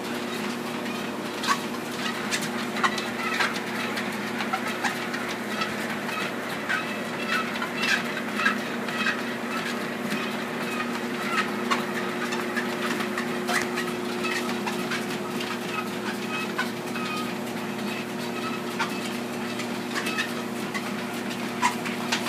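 Treadmill motor and belt running with a steady hum, overlaid by irregular clicks and short squeaks from a dog's paws and claws on the moving belt.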